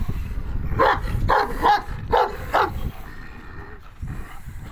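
Kangal shepherd dog barking, a run of about five quick barks in the first three seconds.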